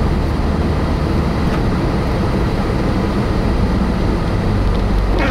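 Steady road and engine noise heard inside a moving car's cabin, a low, even rumble.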